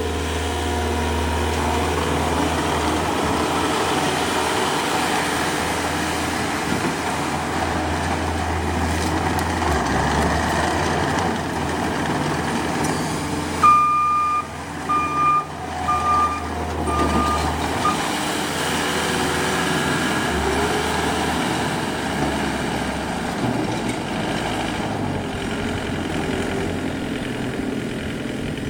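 Takeuchi TL240 skid steer's diesel engine running, its pitch shifting a few times as the machine works. About halfway through, the backup alarm beeps five times, about once a second, as it reverses.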